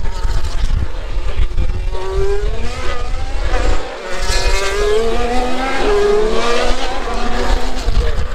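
Formula 1 cars' 1.6-litre turbocharged V6 hybrid engines at high revs as cars pass, the engine pitch rising and falling. Several cars overlap, and the loudest pass comes in the second half.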